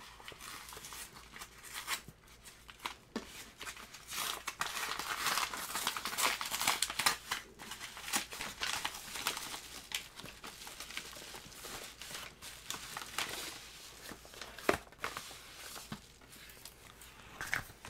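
Padded kraft-paper mailer being torn open and handled, with crinkling and tearing in irregular bursts that are busiest through the middle and a few sharp clicks.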